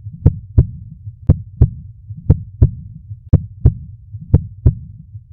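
Heartbeat sound effect: low paired thumps, lub-dub, repeating steadily about once a second.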